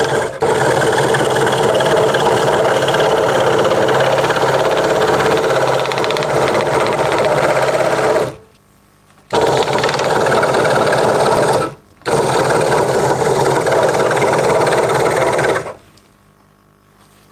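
Craftsman 22-inch scroll saw running, its reciprocating blade cutting through a wooden board. The steady saw sound stops briefly twice, about eight and twelve seconds in, and falls quiet near the end.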